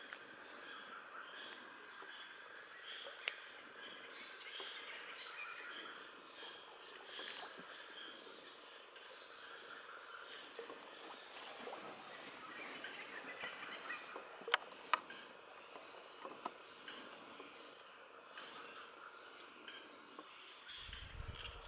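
Dense insect chorus: a steady high-pitched drone, with fainter scattered chirps and a few sharp clicks beneath it. The drone cuts off abruptly just before the end.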